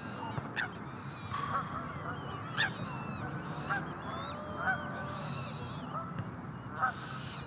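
A group of geese honking: about six short, sharp honks roughly a second apart, with softer calls in between.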